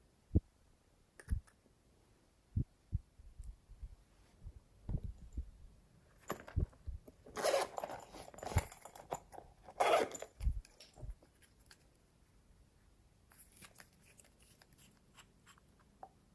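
Zipper of a small pouch being pulled open in two rasping runs about halfway through, after a few soft low knocks of things being handled on a table; faint small clicks follow near the end.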